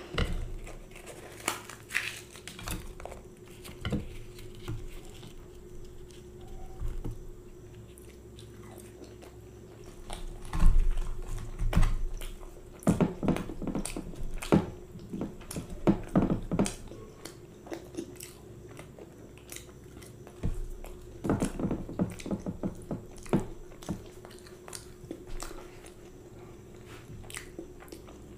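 Close-miked chewing and biting of fried puri dipped in matar paneer curry, irregular clicky mouth sounds that come in clusters. A faint steady hum runs underneath.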